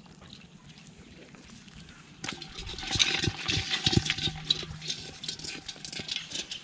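Water splashing and sloshing, faint at first, then louder about two seconds in with a dense run of sharp splashes and knocks.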